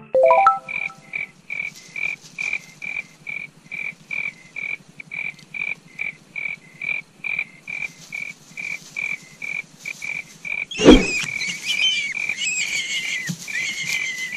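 A frog calling in evenly spaced high chirps, about three a second. A short rising tone sounds at the very start, and a loud thump comes about eleven seconds in, followed by a busier tangle of higher chirps.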